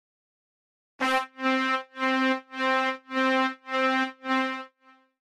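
Halion Sonic SE 3 'Synth Brass 01' synth patch holding one brass-like note whose volume pumps on and off in a steady quarter-note rhythm, about two pulses a second. The pumping comes from a tempo-synced LFO on the level, a sidechain-style effect. It starts about a second in, gives seven even pulses, and ends with one faint short pulse.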